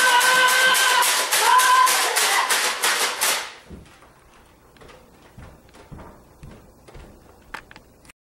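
Background music with a fast, steady beat and held tones, cutting off abruptly about three and a half seconds in. After that it is quiet, with a few faint taps and knocks.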